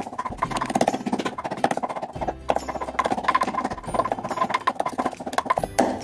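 Wooden pestle pounding raw chicken in a wooden mortar: repeated dull wooden knocks as the meat is mashed into a paste for meatballs.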